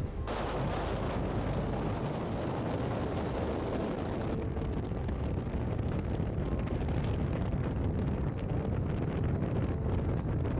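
Strong wind buffeting the camera microphone: a steady, heavy rumble of noise with small gusts, with a slight change in the noise just after the start.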